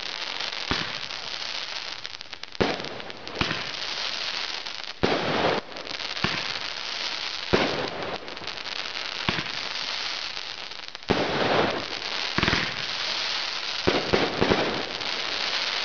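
Fireworks going off: continuous crackling from bursting crackle stars, with a sharp bang every one to two seconds.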